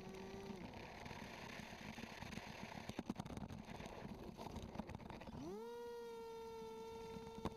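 Motor and propeller of a radio-controlled Swamp Dawg airboat on lake ice. A steady whine drops off about half a second in, leaving a noisy stretch with a few sharp clicks. About five and a half seconds in, the motor spins up in a rising whine and holds a steady pitch.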